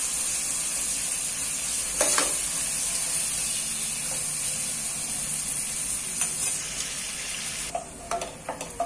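Sliced onions sizzling in hot oil on a high flame as they fry toward golden brown, stirred with a steel ladle that scrapes the aluminium pot about two seconds in. Near the end the sizzle falls away and a few light clicks of a slotted spoon follow.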